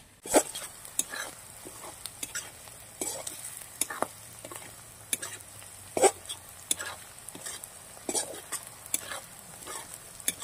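Metal spatula scraping and knocking against a metal kadai at irregular intervals while sliced onions and green chillies sizzle in hot oil.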